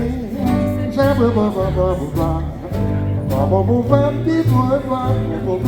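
Small swing-jazz band playing live, with a melody line over a steady beat.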